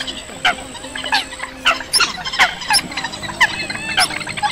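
Bird-lure recording of Eurasian coot calls mixed with the calls of other rails: a dense, overlapping run of short, sharp calls, two to three a second. A thin steady high tone lies underneath.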